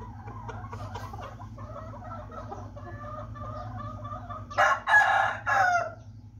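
Chickens clucking and chattering in short pitched calls, then about four and a half seconds in a loud three-part rooster crow breaks in and ends a little before the close.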